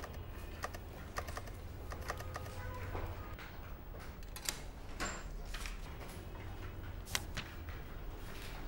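Desktop calculator keys being tapped in quick, irregular plastic clicks, with the pages of a ledger being leafed through; a few louder, sharper clicks stand out in the second half.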